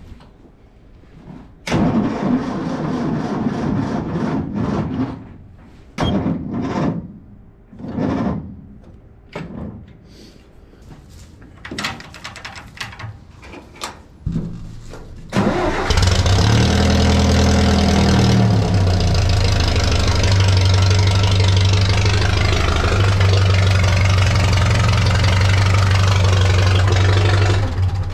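Tractor engine cranked over in several bursts before it catches about halfway through, then runs steadily. Its pitch rises and falls briefly just after it starts.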